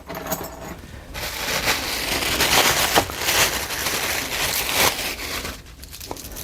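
Packaging crinkling and rustling as it is handled, for about four seconds from about a second in.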